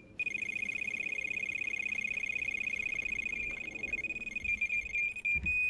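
Electronic carp bite alarm sounding a run: one high-pitched tone, repeated as a very fast stream of beeps for about five seconds. The beeps turn uneven and then merge into a steady tone near the end. It is the sign of a carp that has taken the bait and is pulling line off the reel at speed, a rod that has 'roared off'.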